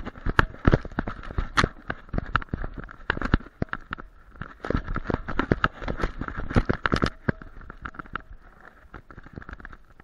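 Camera strapped to a German Shepherd's harness knocking and rattling as the dog moves and plays, with fur and harness fabric scraping against the microphone. The bumps come thick and fast, then thin out over the last few seconds.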